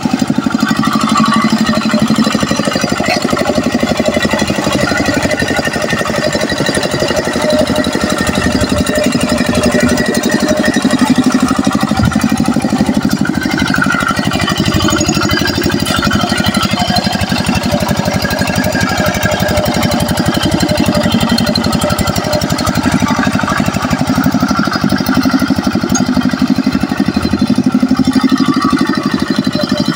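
Yanmar two-wheel hand tractor's single-cylinder diesel engine running steadily under load as it pulls a moldboard plough through wet paddy mud.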